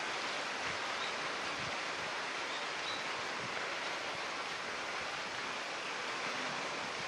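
Steady, even rushing noise that holds at one level throughout, with no call or footstep from the tiger standing out.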